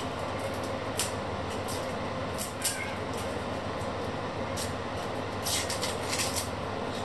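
Eggshell crackling and clicking in short bursts as a boiled egg is peeled by hand, over a steady background rumble.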